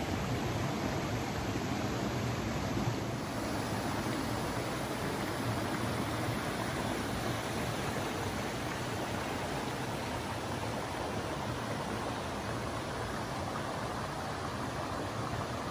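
Steady rushing of a shallow mountain stream over rocks, a little softer after about three seconds.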